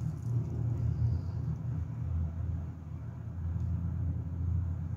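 A low, steady background rumble, with no clear clicks or rustles standing out above it.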